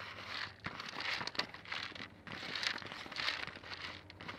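Thin 2-liter plastic bottle crinkling and rubbing in the hands as it is worked off the mousetrap's plastic entrance fitting, in a run of short rustling bursts.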